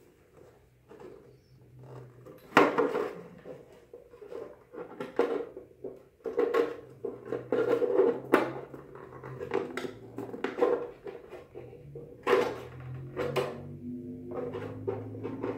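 Hollow plastic knocks, taps and scrapes as the halves of a vacuum-formed plastic helmet are handled, turned over and pressed together, at an irregular pace with louder knocks every second or so.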